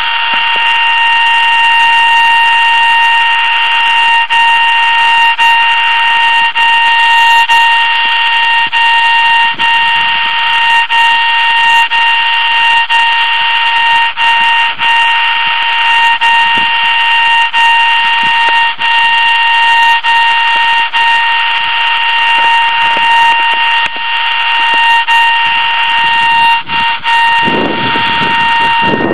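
DFNA 1016 underground-wire fault locator sounding a loud, steady electronic tone with a hissy edge, unchanging throughout, as it picks up the signal on the buried dog fence wire being traced.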